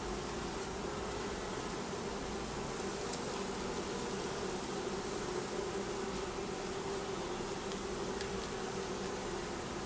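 Honeybees from an open hive buzzing in a steady hum, with a few faint ticks.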